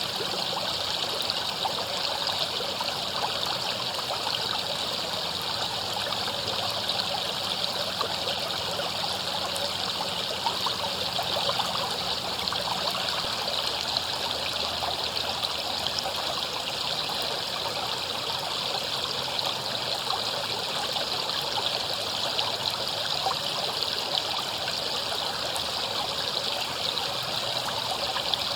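River water flowing steadily over rocks, a continuous splashing rush with fine trickles.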